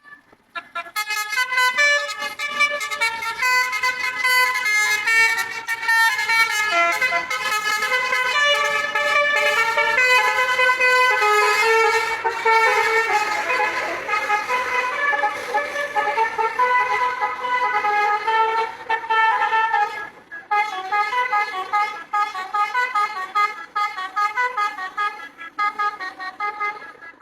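A bus's Basuri telolet horn, a multi-trumpet musical air horn, playing a tune of quickly changing notes, with a short break about twenty seconds in before it plays on.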